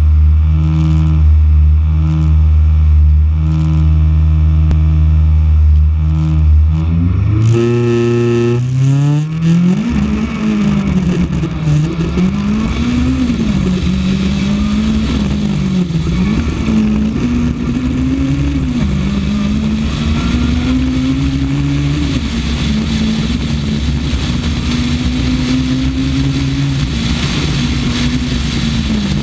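Onboard sound of a Honda Civic rally car driven flat out on a stage. After a steady low drone for the first seven seconds, the engine revs climb sharply as the car pulls away. The revs then rise and fall again and again with the gear changes, over constant road and tyre noise.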